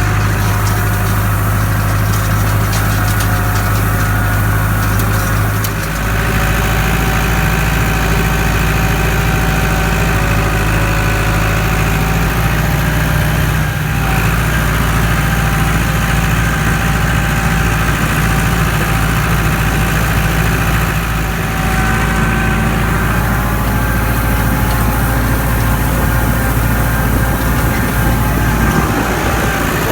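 Tractor engine running steadily, its low note shifting up a step about six seconds in and then holding.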